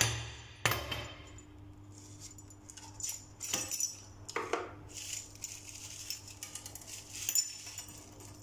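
Metal tools and a chrome angle valve handled and set down on a granite countertop: two sharp knocks in the first second, then scattered clinks, over a faint steady low hum.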